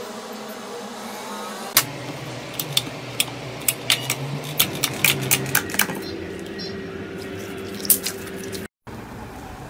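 Slime being squeezed and pressed by hand, giving a quick run of sharp pops and clicks as air pockets burst. The sound cuts out briefly near the end.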